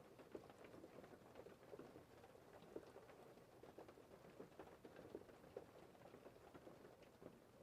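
Faint patter of gentle rain: many small, irregular drops ticking.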